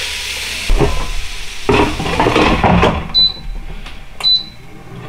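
Cod sizzling on the hot grilling plate as the GoWISE USA air fryer basket is slid into the fryer and shut with a few knocks and scrapes. Then the fryer's touch panel beeps twice, about a second apart, as its buttons are pressed.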